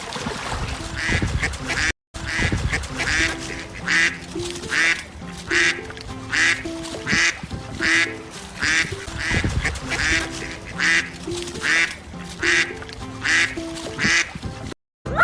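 Duck quacking over and over in a steady series, roughly one quack every two-thirds of a second, over background music.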